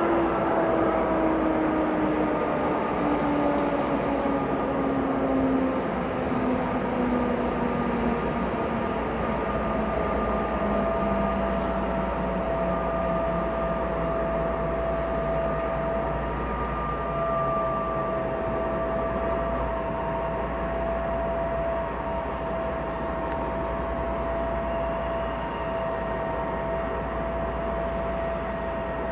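DB class 232 'Ludmilla' diesel locomotive with its V16 two-stroke engine running under way, a steady heavy engine sound with whining tones that fall slowly in pitch over the first ten seconds, then a steady high whine that holds.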